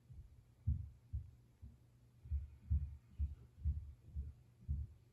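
Footsteps walking at a steady pace, heard as dull low thumps about two a second over a steady low hum.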